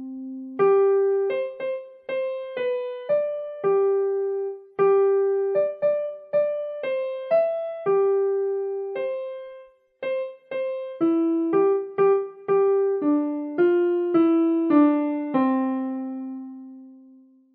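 Solo piano playing a slow melody one note at a time, with a short pause about ten seconds in and a last low note left to ring and fade away near the end.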